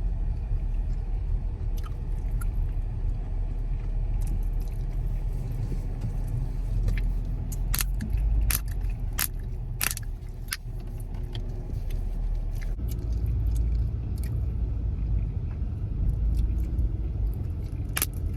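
Steady low rumble of a car on the move, heard from inside the cabin, with irregular sharp snapping clicks scattered through it.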